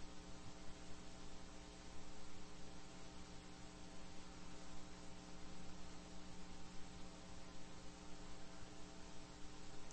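Steady electrical hum made of several held tones, over a constant hiss: the background line noise of the recording.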